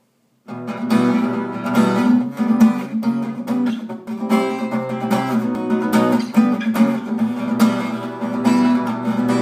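Acoustic guitar strummed in a steady rhythm, the instrumental introduction to a song, starting about half a second in.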